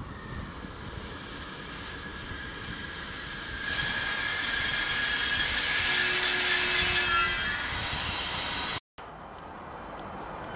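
Regional passenger train with an E.464 electric locomotive rolling through a curve, its wheels squealing on the curved rails with several high-pitched tones over the rolling noise, growing louder after a few seconds. The sound cuts off abruptly near the end, followed by quieter background noise.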